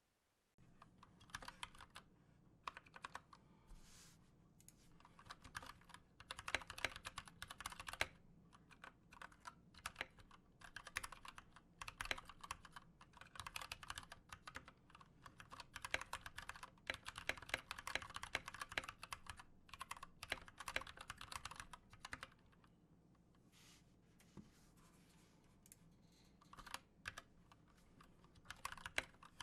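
Typing on an Anne Pro 2 60% mechanical keyboard with stock, unlubed Gateron Brown switches and double-shot PBT keycaps: fast runs of keystroke clicks, pausing briefly about 8 seconds in and again for a few seconds past the middle.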